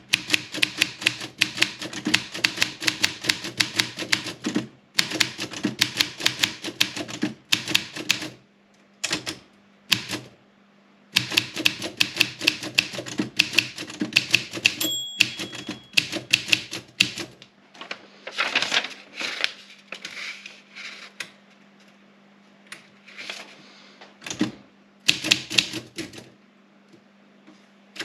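Olympia SM 7 manual typewriter being typed on in quick runs of keystrokes, several clacks a second, broken by short pauses. About halfway through there is a brief ring, the typewriter's line-end bell.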